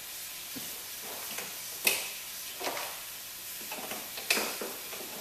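A few sharp, irregularly spaced clicks and clatters as a portable jump starter and its cable clamps are handled on the engine bay, over a steady hiss.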